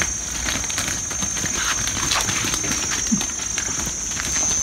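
Irregular knocks and rattles of a cylindrical mesh fish trap being lifted and handled in shallow creek water, with a big fish caught inside.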